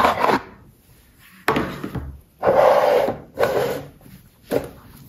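Hands handling a jewellery box: several short rubbing, scraping sounds, the longest around the middle.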